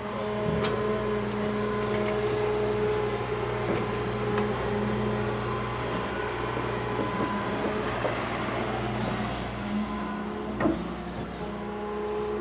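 Large excavator's diesel engine running steadily with a constant hum, with one sharp knock near the end.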